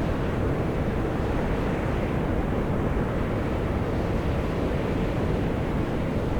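Volcanic fumaroles of Mt. Io (Atosanupuri) venting steam and gas with a steady, deep rushing hiss.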